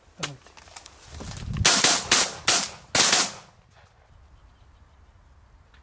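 Shotgun shots at wood pigeons from several hunters: a single shot, then, about a second later, four louder shots in quick succession, each trailing off in an echo. One more shot comes right at the very end.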